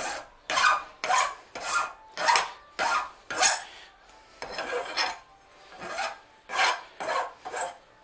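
Fine-tooth hand file rasping across the cut end of a small metal bar held in a vise, taking off the sharp edges. The strokes are steady and back-and-forth, about two a second, and lighter for a moment around the middle.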